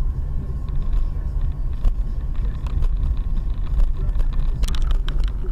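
A car on the move: a steady low rumble of engine and road noise, with a faint steady whine and a few light clicks that grow more frequent near the end.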